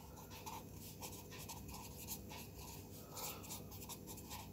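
Pen scratching on paper as words are handwritten: faint short strokes in quick, irregular succession.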